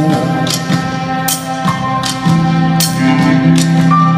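Live rock band playing instrumentally: an electric guitar with held notes over drums and repeated percussion hits.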